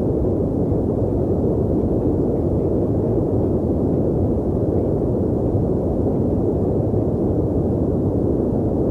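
Loud, continuous low rumble of a string of aerial bomb explosions running together, with no single blast standing out.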